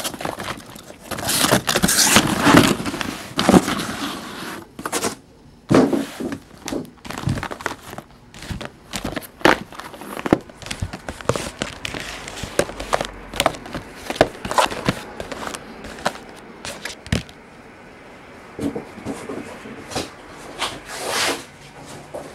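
Sealed, shrink-wrapped trading-card boxes being pulled out of a cardboard shipping case and set down on a table. Plastic crinkling and scraping comes first, then a run of separate knocks and taps as the boxes are put in place, growing sparse near the end.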